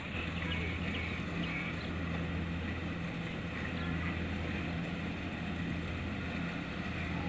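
Kubota DC-70 Plus rice combine harvester's diesel engine running steadily under load, a constant low hum.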